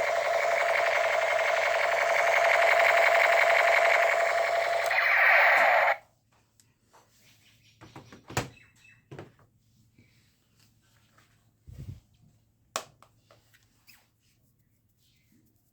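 Battery toy gun's electronic firing sound effect, a loud rapid buzzing rattle that cuts off suddenly about six seconds in. After it come a few quiet clicks and knocks.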